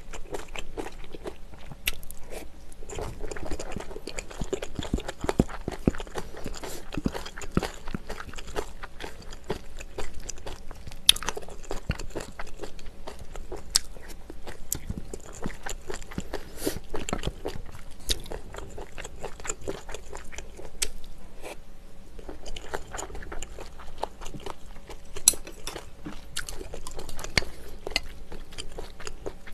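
Close-miked eating sounds: a person chewing mouthfuls of rice mixed with river-snail doenjang stew, wet chewing with many small irregular clicks and crunches and a few sharper clicks.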